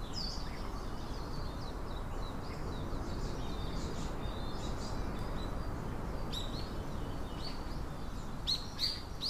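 Small birds chirping over a steady background hiss of outdoor ambience, with a few louder, quick chirps near the end.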